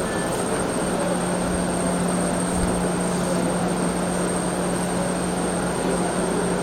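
Steady machine-like noise, with a low hum that comes in about a second in and a faint high whine throughout.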